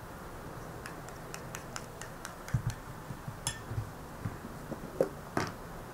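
Metal spoon clinking and scraping against a ceramic bowl while stirring oil and ground red spice: a string of light clicks, one tap ringing briefly about halfway through and two louder knocks near the end.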